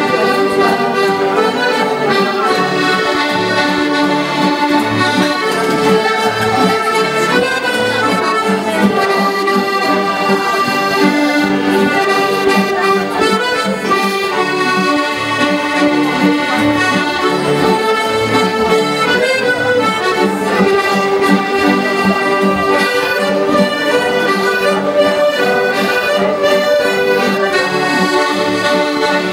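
Several accordions playing a traditional dance tune together over a steady bass beat.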